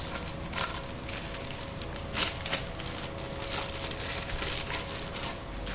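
Clear plastic packaging bags rustling and crinkling as they are handled, with a few sharper crackles about two seconds in.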